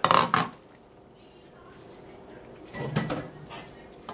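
Kitchenware clatter: a loud, scraping knock right at the start as the chicken is scraped from a bowl into the saucepan and the bowl is pulled away, then a second knock and scrape of the spatula in the pan about three seconds in.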